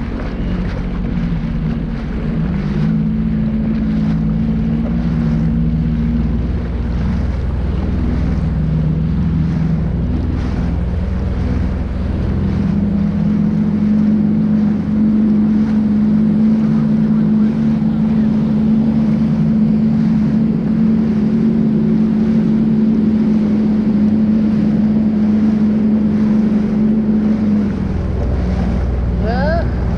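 Sea-Doo personal watercraft engine running under way, with wind noise on the microphone. About twelve seconds in the engine speeds up and holds a steady higher pitch, then drops back near the end.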